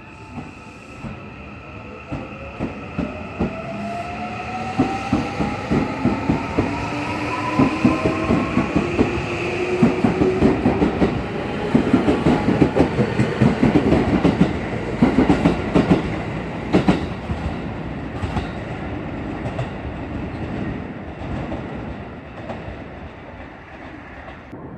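Electric commuter train accelerating through the station, its motor whine rising steadily in pitch while the wheels click rapidly over the rail joints. It grows louder, is loudest about halfway through, then fades.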